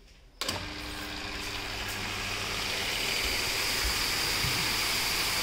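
Electric-motor-driven HTP high-pressure cleaning pump switches on abruptly about half a second in and runs steadily with a hum, with a high hiss of pressurised water spray that grows a little stronger.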